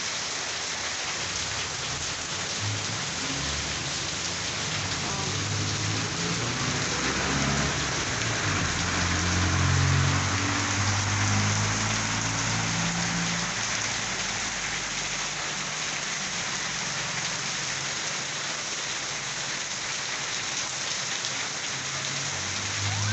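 Heavy rain pouring steadily, an even hiss. A low rumble swells in the middle, loudest about ten seconds in, and fades.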